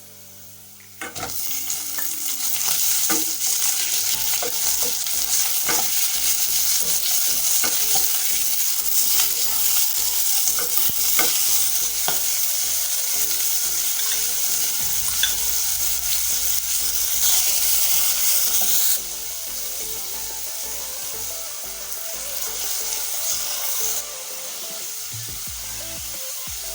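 Beef topping frying in hot oil in a pan and being stirred: a steady sizzle with small clicks of the utensil against the pan. The sizzle starts about a second in and turns quieter twice in the second half.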